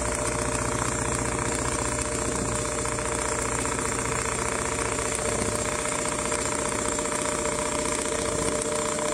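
Automatic CNC sewing machine running steadily at full speed: a constant motor whine over rapid, even needle strokes.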